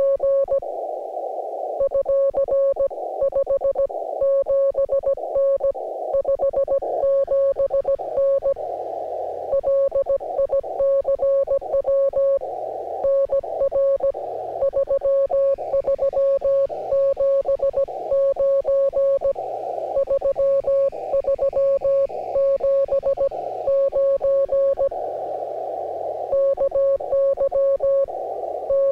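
Morse code (CW) on the 17-metre amateur radio band: a steady tone of about 600 Hz keyed on and off in dots and dashes at a brisk pace. Band hiss, held to a narrow slot by a CW filter, fills the gaps between characters.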